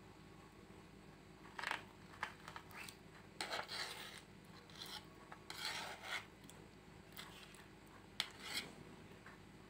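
A kitchen knife cutting through a set gelatin jelly cake full of fruit pieces, in several short scraping strokes with pauses between, and a sharp click about eight seconds in.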